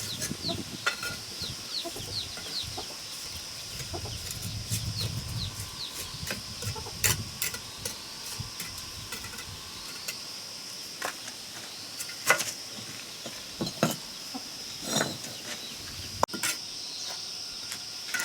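Chickens clucking, with a few sharp knocks scattered through the second half.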